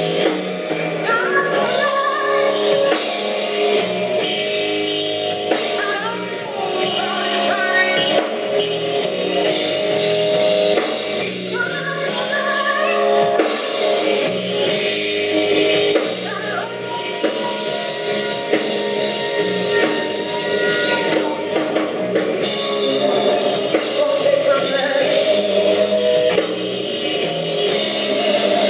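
A woman singing with a live band: electric guitar, bass guitar and drum kit, with one long note held about halfway through.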